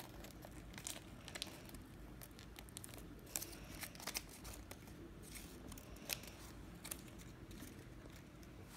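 Folded origami paper rustling and crinkling as hands handle it and press its flaps, in faint, irregular short crisp crinkles.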